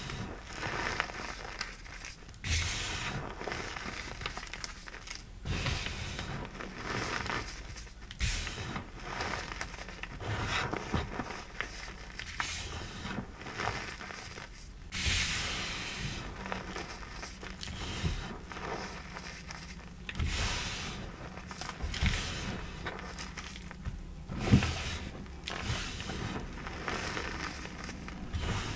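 Hands squeezing and crumbling loose powdered gym chalk: irregular soft crunching and crackling, a burst every second or two.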